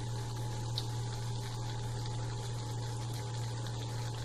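Balushahi dough rounds deep-frying in hot oil in a small pan: a steady bubbling sizzle, over a steady low hum.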